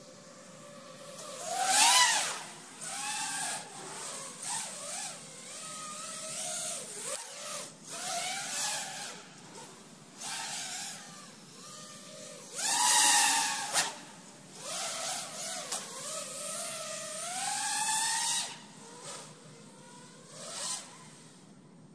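5-inch FPV quadcopter (ImpulseRC Alien on 2205 2400kv brushless motors with 5-inch props) whining in surges, its pitch sweeping sharply up and down as the throttle is punched and chopped through powerloops. The loudest surges come about two, thirteen and eighteen seconds in.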